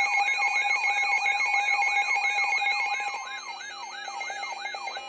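Weather alert radio sounding its alarm: a siren-like tone that sweeps up over and over, about three to four times a second. It drops in level about three seconds in and stops near the end.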